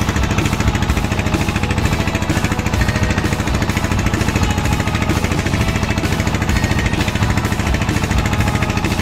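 Small boat's motor running steadily under way, with a fast, even pulse.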